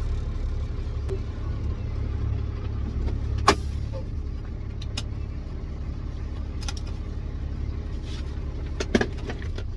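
Ford F650's 5.9 Cummins diesel engine droning steadily as the truck drives, heard from inside the cab. Two sharp knocks or rattles come through, about three and a half seconds in and again near the end.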